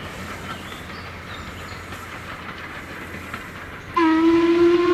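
Steady rumble of a passing steam train, then about four seconds in a steam locomotive's whistle sounds loudly, one steady note that carries on.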